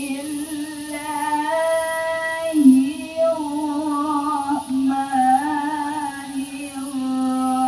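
A woman reciting the Quran in the melodic tilawah style, holding long, wavering notes and moving between pitches in drawn-out phrases.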